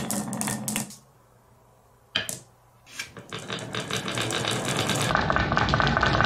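Marbles clattering as they drop off a wooden marble run into a toy truck's metal bed, stopping about a second in. After a single click, many marbles rolling down the wooden wavy channels make a rattle that builds and then keeps going steadily.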